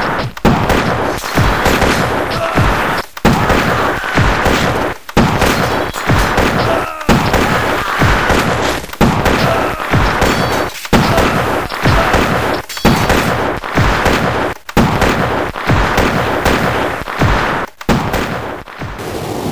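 Dense, continuous gunfire like a battle sound effect, loud, with short breaks about every two seconds.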